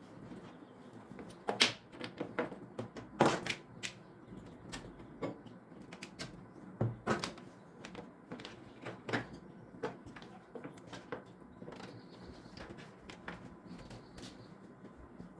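Irregular knocks, clicks and clatter of a desktop PC case being handled and moved out of its place. The sharpest knocks come between about one and a half and seven seconds in, with lighter clicks after.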